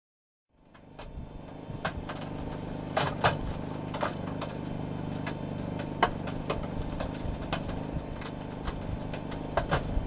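A steady low engine hum, like a machine idling, starting about half a second in, with irregular sharp clicks and cracks over it, the loudest about three seconds and six seconds in.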